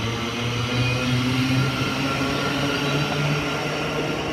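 Siemens Class 700 electric multiple unit accelerating away, its traction equipment giving a humming whine that steps up in pitch.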